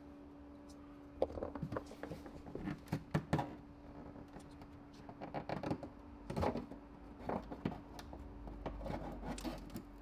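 Light plastic clicking and scraping as a BMW E60's spring-loaded side marker light is pushed back against its clip and worked out of the fender, in three short flurries of small clicks.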